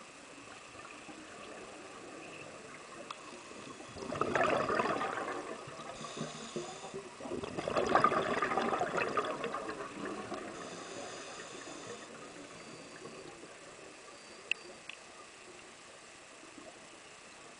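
A scuba diver breathing out through a regulator underwater: two bubbling rushes of exhaled air, about four and seven seconds in, the second one longer.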